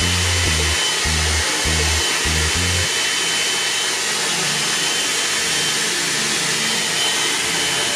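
FairyBrave hot-air blowout brush running steadily: a constant rush of air with a thin, steady whine from its fan motor.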